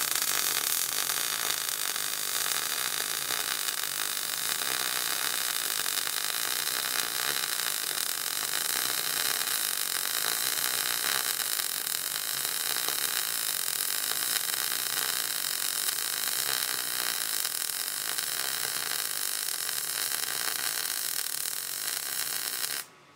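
MIG welding arc on a beveled steel butt joint, an ESAB Fabricator welder laying a continuous bead as the torch is woven in a triangle pattern: a steady hiss that cuts off sharply near the end when the trigger is released.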